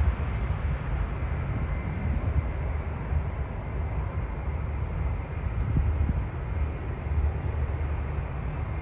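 Distant Airbus jet airliner on its takeoff roll, engines at takeoff thrust: a steady low rumble without distinct tones.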